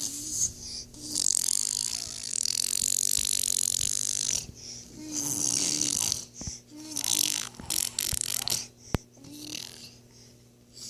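A small child making funny noises with his mouth and throat: long hissing, breathy rasps, three main ones, broken by short low voiced grunts. The noises fade near the end.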